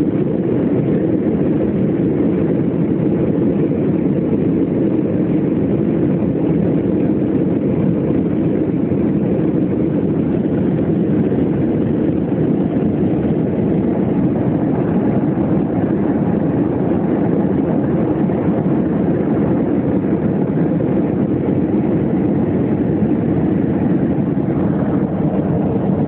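Steady airliner cabin noise in flight: the even rush of the engines and airflow, a low, unchanging drone with no rises or breaks.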